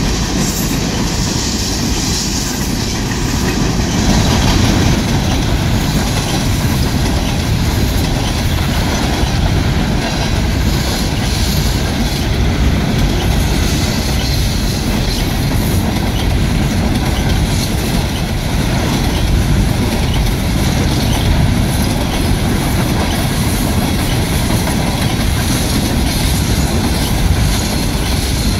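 Union Pacific coal train's gondola cars rolling past: a steady rumble of steel wheels on rail with continuous clatter over the track.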